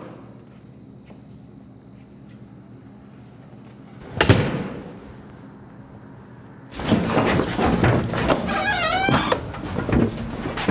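A door slams shut about four seconds in, with a short ringing tail. From about seven seconds in, loud, busy outdoor street noise takes over, with a brief wavering high tone in the middle of it.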